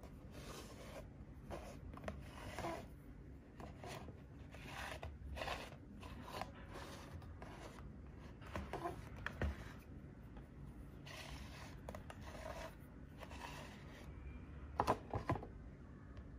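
Small plastic Q posket petit figure being handled and turned on a tabletop: its plastic base scrapes and slides on the table and fingers rub over it, with a few light knocks. The sharpest two knocks come close together near the end.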